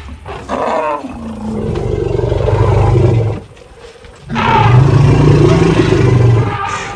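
African elephant roaring loudly during a charge: a short falling call near the start, then two long low roars with a brief break between them.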